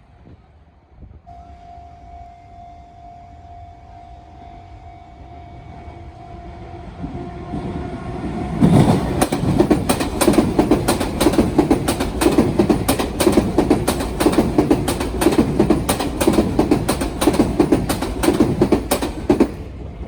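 A Sotetsu train runs over the turnout at a level crossing, its wheels clattering loudly and rapidly over the rail joints of the branch for about eleven seconds. Before that, a steady tone sounds as the train approaches and grows louder.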